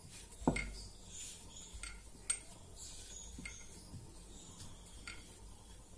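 Light knocks and taps against a round rolling board as stuffed buckwheat-flour dough is pressed out by hand, with faint rubbing of the dough. The loudest knock comes about half a second in, another a couple of seconds in, and a few softer taps follow.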